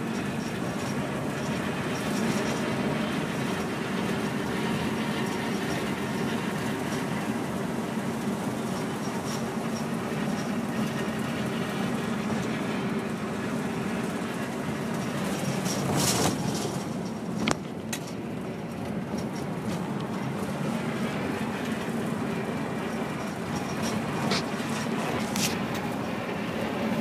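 Inside the cabin of a 1968 GMC PD-4903 coach cruising on the highway: its Detroit Diesel two-stroke V8 runs steadily under a haze of road and wind noise. A few sharp rattles or knocks from the bus body come about two-thirds of the way through and again near the end.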